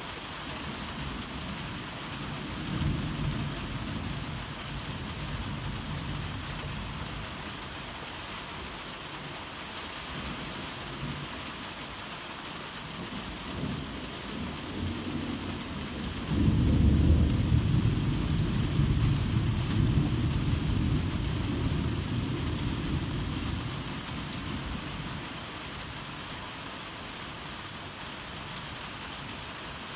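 Heavy rain falling steadily, with thunder: a low rumble a few seconds in, then a louder crack about halfway through that rolls on for several seconds and fades away.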